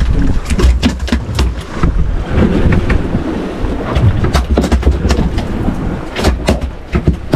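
Wind buffeting the microphone in a heavy, gusting rumble, broken by many short knocks and clicks.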